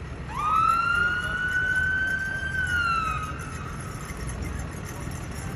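A siren gives one short wail: it rises quickly, holds steady for about two seconds, then falls away, over the low rumble of slow-moving vehicles.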